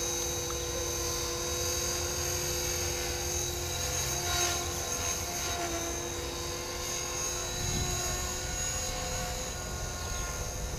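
Electric radio-controlled helicopter, an Align T-Rex 450 Pro, flying aerobatics overhead: a steady high motor and gear whine over rotor-blade noise. About four seconds in the blade noise swells louder, and around six seconds in the whine shifts to a slightly higher pitch as the manoeuvre changes.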